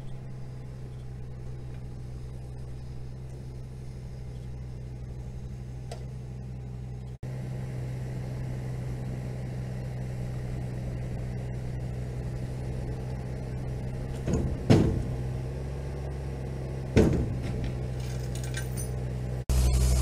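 Vehicle engine running steadily with a low hum, a little louder from about seven seconds in, with two brief louder surges at about fifteen and seventeen seconds in.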